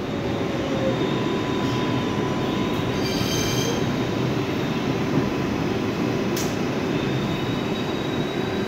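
R142A subway car running on the track, heard from inside the car: a steady rumble of wheels and running gear with faint, thin wheel squeal above it. A brief high screech comes about three seconds in, and a sharp click comes a little past six seconds.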